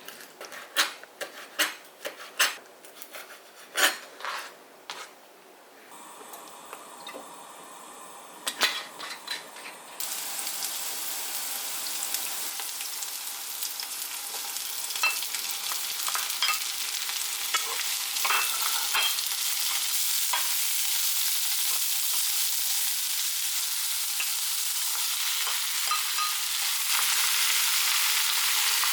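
Sharp knocks and clatter of kitchen utensils, then food sizzling in a frying pan from about ten seconds in, the sizzle growing slowly louder, with occasional scrapes of stirring.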